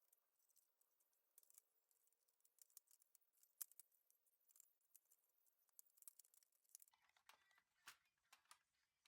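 Faint scattered clicks and light taps of small hard parts being handled, growing busier from about seven seconds in.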